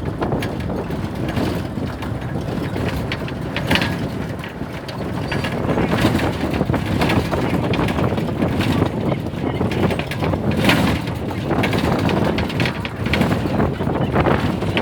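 Tamil Nadu government bus running along the road: steady engine and road noise with irregular rattles and knocks every second or two.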